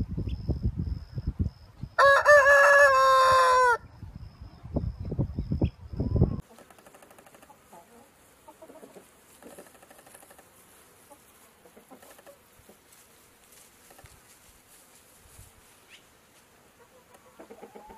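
A rooster crows once, a loud call of nearly two seconds starting about two seconds in and dropping in pitch at its end, over a low rumble. After about six seconds the sound turns much quieter, with hens clucking softly.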